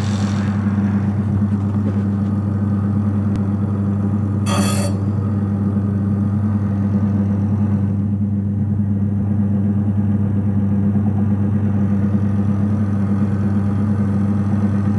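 Chicken cutting machine's electric motor running with a steady low hum, with one brief noise about four and a half seconds in.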